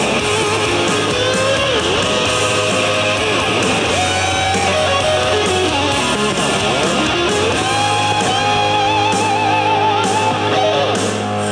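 Rock music: an electric guitar plays a lead line with bent notes and vibrato over a steady band backing.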